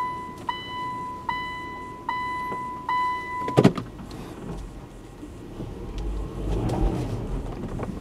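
A car's reverse-gear warning beeper sounding inside the cabin, a steady pulsing beep a little more often than once a second, stops with a clunk about three and a half seconds in. A low rumble follows near the end.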